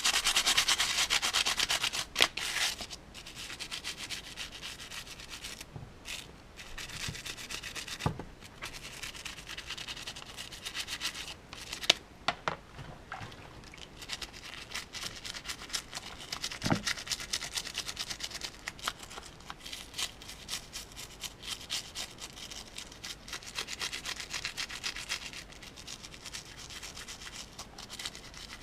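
A toothbrush scrubbing the plastic parts of a disassembled remote control in rapid back-and-forth strokes, scraping off built-up grime. The scrubbing is loudest in the first couple of seconds, with a few sharp knocks here and there.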